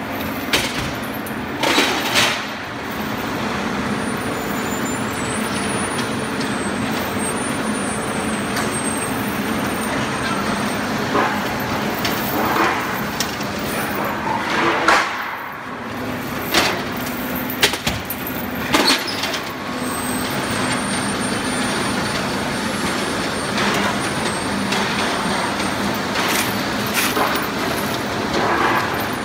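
Steel guardrail production-line machinery running with a steady motor hum, broken by irregular sharp metal clanks and bangs of the steel strip and the punching press.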